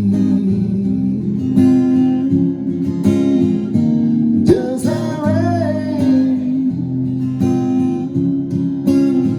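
Acoustic guitar strummed in steady chords. About halfway through, a voice sings a long wavering note without words.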